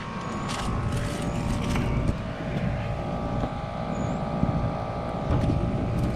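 Steady mechanical hum over a low rumble: a few unchanging tones on top of a fluctuating low noise, the kind of sound made by running machinery such as outdoor air-conditioner units or nearby traffic.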